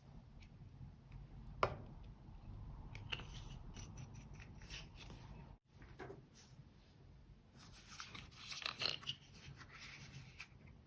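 Slime being handled: scattered sticky clicks and small crackles, with a denser run of crackling in the last few seconds.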